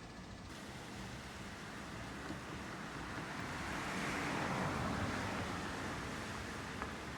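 A rushing outdoor noise that swells to its loudest about four to five seconds in and then eases off.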